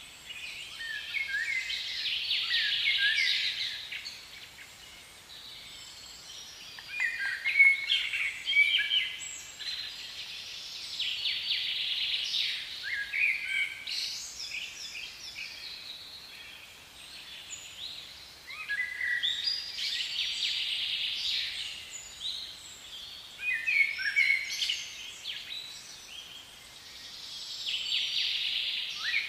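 Songbirds singing, short chirping phrases recurring every few seconds, over a faint steady hiss.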